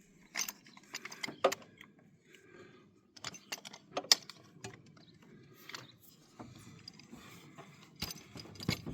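A pipe wrench clinking and knocking as it is set on and worked against the oil filter cap on top of a Ford 6.0 diesel engine: scattered sharp metallic clicks at uneven intervals, with a cluster near the end.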